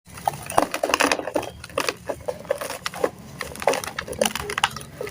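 Dry, packed sand crumbling in a tub: quick, irregular crunching and crackling.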